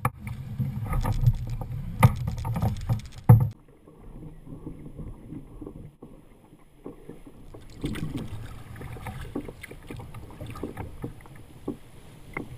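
Sounds of a kayak on the water: a loud low rumble with knocks and handling bumps on the boat for the first three and a half seconds, cutting off abruptly. After that, quieter water sounds with scattered small clicks and knocks.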